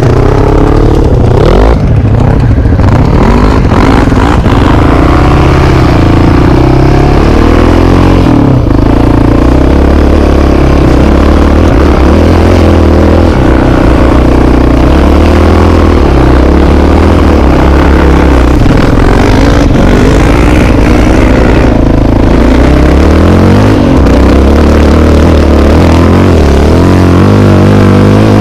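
Yamaha Raptor 700 quad's single-cylinder engine, loud and close from the rider's helmet, revving up and down again and again as it is ridden off-road.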